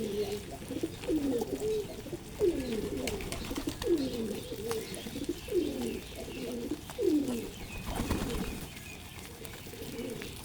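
Pigeons cooing: a run of low, falling coos, several overlapping at first, that stops about three-quarters of the way through.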